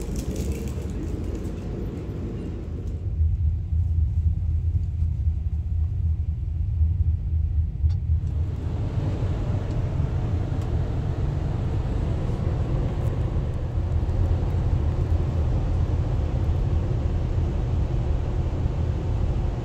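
Steady low rumble of a passenger train running, heard from on board. It grows louder about three seconds in, and a higher hiss joins it again from about eight seconds.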